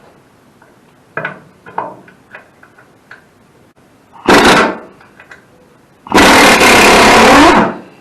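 A handheld power tool run in two bursts, a short one about four seconds in and a longer one of about a second and a half near the end, working the old nuts off a stainless steel cover. Light clicks and knocks of handling come between them.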